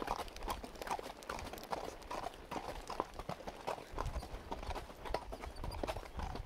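Hoofbeats of a ridden horse on a hard dirt trail, a steady run of footfalls.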